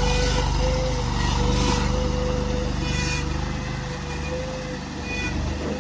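Skid steer loader's engine running steadily, with a constant high whine over it and a few brief hisses.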